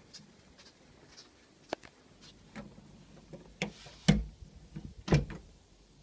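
Light clicks and knocks from handling, with two louder thumps about four and five seconds in.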